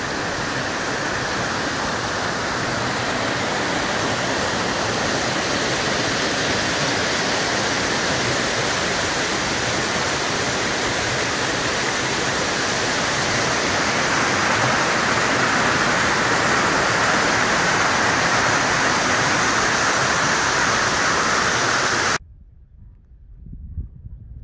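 Steady loud rush of fast-flowing water from a Highland stream, which cuts off abruptly about 22 seconds in.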